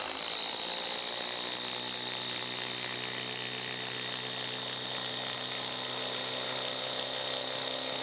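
DeWalt Atomic compact 20V impact driver on speed 3 hammering a 6-inch TimberLOK structural screw into a wooden log, running continuously under load with a steady high whine.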